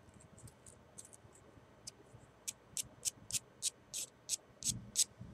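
A file rasping across the end of a wooden chopstick: about nine short strokes at roughly three a second, starting about halfway through, after a few faint ticks. The end is being smoothed and rounded into a crochet hook.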